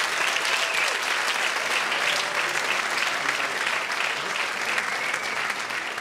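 Audience applauding, a dense steady clapping that begins to ease near the end.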